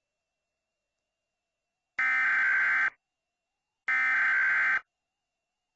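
Emergency Alert System SAME header: harsh, buzzy digital data bursts, starting about two seconds in and repeated about a second apart, two full bursts with the third just beginning at the end. These bursts open an emergency alert broadcast.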